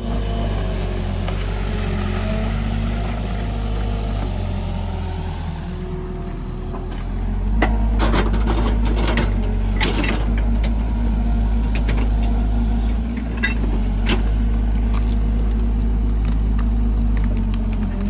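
JCB tracked excavator's diesel engine running steadily, getting louder about halfway through as the arm works. Several sharp knocks and scrapes from the bucket digging mud stand out in the middle.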